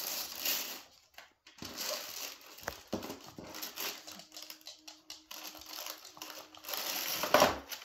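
Gift-wrapping paper crinkling and tearing in several irregular bursts as a present is unwrapped.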